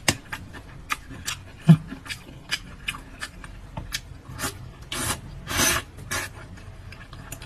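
Chicken heads being chewed and crushed bones and all, close to the microphone: irregular sharp crunches and cracks of bone, with a louder, longer stretch of crunching about five to six seconds in.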